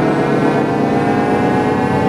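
Electronically distorted logo jingle audio: a dense, steady drone of many stacked tones gliding slowly upward in pitch.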